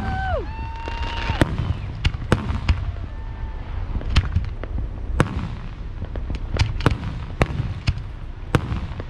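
Fireworks display: aerial shells bursting in about a dozen sharp, irregularly spaced bangs and cracks over a continuous low rumble.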